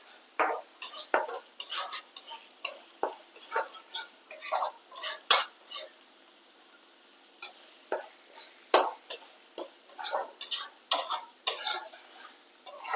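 A spatula scrapes and stirs thick masala paste frying in a kadai, in irregular strokes against the pan with a short pause about halfway through. The paste is being fried until the oil separates.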